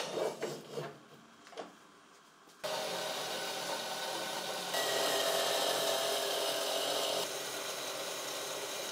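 Workshop tool noise: a few irregular knocks and scrapes, then from about two and a half seconds in a power tool running steadily, louder for a couple of seconds in the middle.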